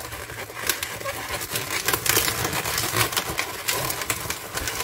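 Inflated 260 latex modelling balloons being twisted by hand into a bear-ear twist, the latex rubbing together in a rapid, irregular run of small crackles and clicks.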